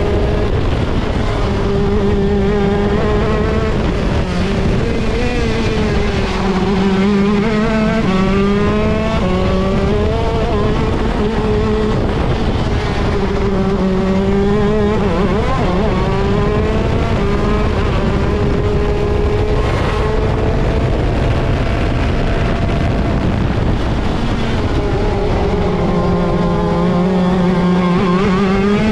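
ROK Shifter kart's 125cc two-stroke engine at race pace, heard onboard. Its pitch climbs and drops over and over as it accelerates through the gears and brakes for corners.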